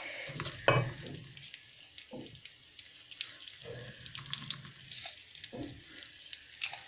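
Rice frying in an aluminium pot, a wooden spoon stirring and scraping through it, with a few short knocks and scrapes now and then. This is the frying stage before the water goes in.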